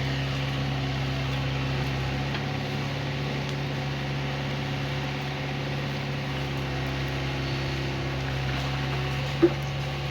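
Excavator's diesel engine running steadily at a constant speed, with a brief loud blip near the end.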